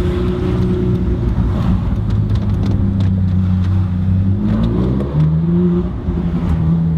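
Ferrari 458 Spider's 4.5-litre V8 running through an Armytrix titanium exhaust with its valves open, heard from inside the cabin while driving. The steady engine note rises briefly, then drops in pitch about five seconds in and begins to climb again.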